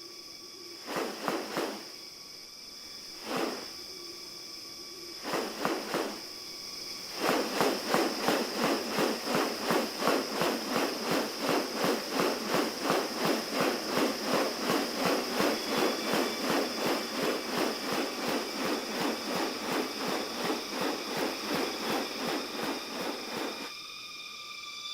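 Tropical rainforest ambience: a steady high insect drone, with a few separate calls in the first seconds. From about seven seconds in, a long run of rapid, evenly repeated harsh pulses, about three a second, stops abruptly near the end.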